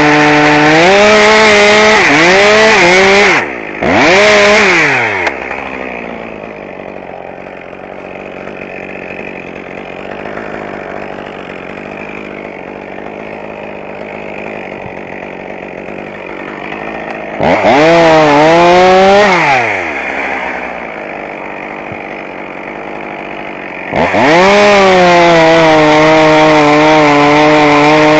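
Chainsaw engine running at full throttle, its pitch sagging and recovering a few times, then dropping to a quiet idle for about twelve seconds. It revs up briefly again, idles, and then runs at full throttle once more near the end.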